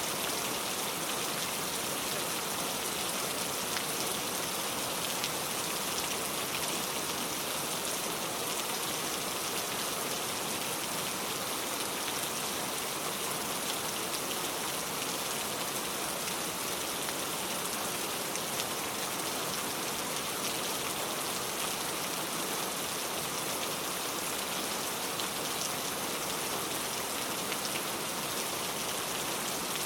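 Steady, heavy rain falling, an even hiss with fine drop ticks and no thunder.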